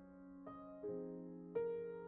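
Soft, slow background music on a piano-like keyboard, single notes and chords struck every half second or so and left to ring and fade.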